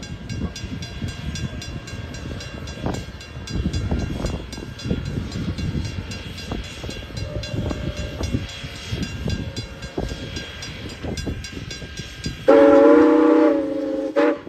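Railroad coach rolling along with a steady rumble and rhythmic clicking over the rail joints. Near the end the steam whistle of 1910 2-6-0 locomotive No. 89 sounds one loud chord-like blast of about two seconds.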